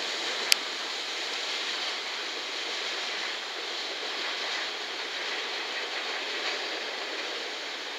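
Freight train rolling away with the EF210 electric banking locomotive pushing at its tail: a steady rumble of wheels on rails, easing off slightly toward the end. There is one sharp click about half a second in.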